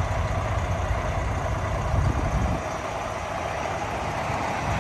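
Volvo D13 diesel engine of a Volvo VNL semi truck idling with a steady low rumble.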